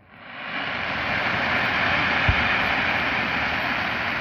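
Aerial fireworks crackling: a dense, hissing crackle swells up just after the shell bursts and holds steady, with one low boom about two seconds in.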